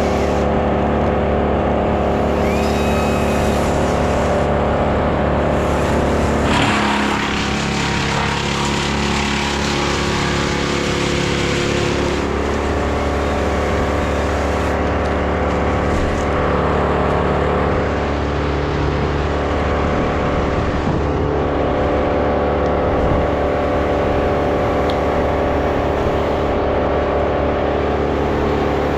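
An engine running steadily, with a stretch of harsher, hissier noise from about seven to twelve seconds in.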